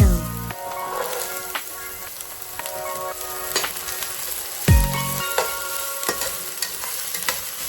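Fried rice sizzling as it is stir-fried in a hot pan, with a spatula clicking and scraping against the pan now and then.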